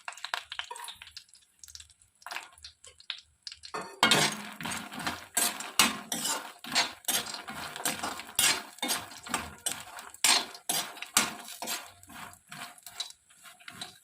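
A spatula scraping and knocking against a kadhai as makhana (fox nuts) are stirred and roasted in ghee: a few faint clicks at first, then from about four seconds in a steady, irregular run of scrapes and clinks, several a second.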